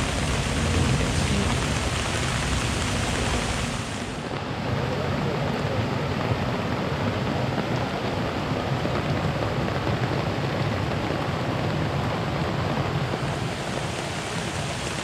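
Heavy rain falling steadily: a dense, even hiss of rain pouring down, with a slight dulling in its higher hiss about four seconds in.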